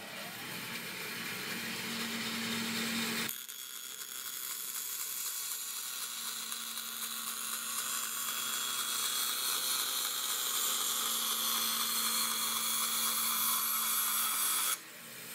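A bandsaw starts up and runs with a steady hum. From about three seconds in, its blade cuts straight through a thin plywood sheet fed by hand, with an even hiss that stops shortly before the end.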